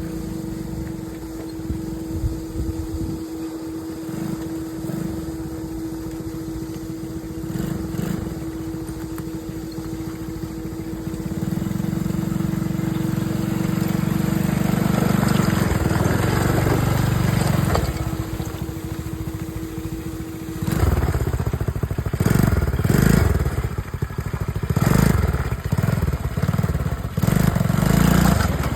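Small ATV engine running while being ridden, with a steady whine over it. About two-thirds of the way through, the whine drops out and the engine turns louder and uneven, surging on and off the throttle.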